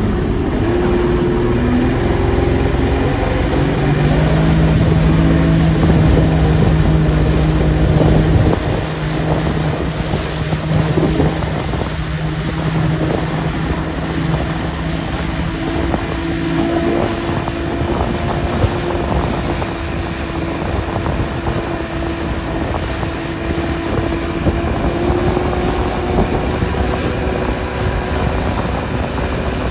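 Mercury 60 hp outboard motor revving up over the first few seconds, then running steadily at speed while towing a banana boat. Wind buffets the microphone and water rushes past in the wake.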